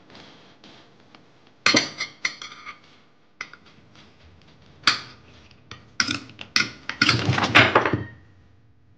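Clattering and knocking of hard household objects: scattered sharp knocks, then a denser run of clatter near the end.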